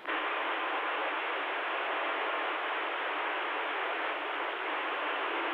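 CB radio receiver hiss: steady static from the radio's speaker between skip transmissions, switching on abruptly after a brief silence, with a faint voice starting to come through it near the end.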